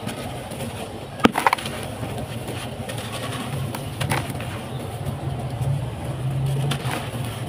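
Dry, dusty sand-and-cement mud lumps being crumbled by hand over a basin of powder and grit: a few sharp cracks as lumps break, the first about a second in, with crumbling between them over a low steady hum.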